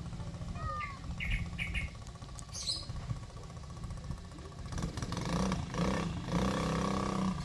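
Small engine running with a steady low rumble, turning louder and more strained about two-thirds of the way in. Birds chirp briefly in the first few seconds.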